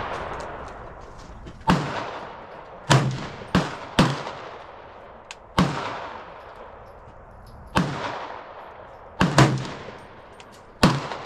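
Springfield M1A SOCOM 16 semi-automatic rifle firing 7.62x51 rounds, about nine shots at an uneven pace, two of them nearly back to back, each trailing off in a long echo.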